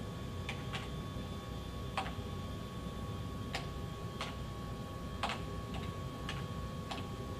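Computer keyboard keys being pressed one at a time, about nine separate clicks at uneven spacing, as an IP address is typed in. A faint steady hum lies underneath.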